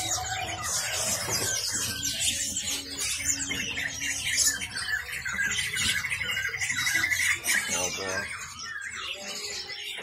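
Many caged songbirds chirping and calling over one another, with a rapid, even trill lasting about two seconds around the middle. A faint steady low hum underneath.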